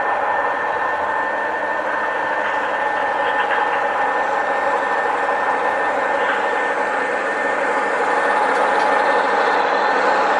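Digitally reproduced EMD DD35 diesel engine sound from QSI DCC sound decoders in brass model locomotives, playing steadily through the models' small onboard speakers.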